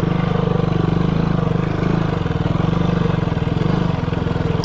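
KTM 200 Duke's single-cylinder engine running steadily under way, its exhaust a rapid, even beat, as the motorcycle rides over a rough dirt trail.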